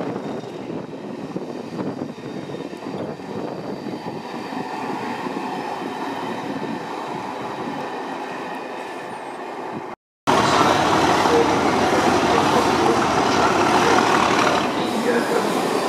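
Locomotive-hauled train of coaches moving through the station, a steady rumble of wheels on rail. About ten seconds in the sound drops out briefly and comes back louder: a British Rail Class 37 diesel locomotive running close by, its English Electric V12 engine working.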